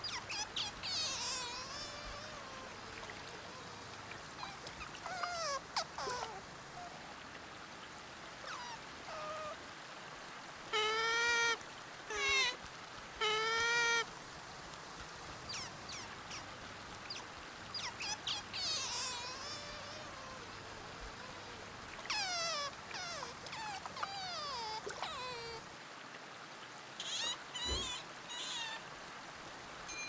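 Otters calling with a series of high-pitched squeaks and short falling chirps. Near the middle come three louder, wavering squeals in quick succession.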